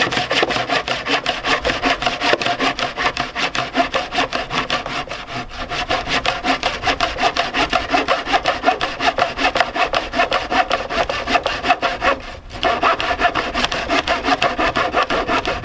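Hand saw cutting through a Douglas fir board in quick, steady back-and-forth strokes, the teeth rasping through the wood, with a brief pause about twelve seconds in.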